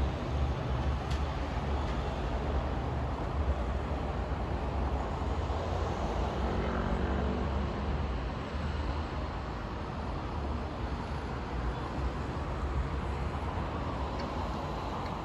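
City street ambience in a thunderstorm: a steady wash of noise with a deep low rumble underneath, easing off slightly in the second half.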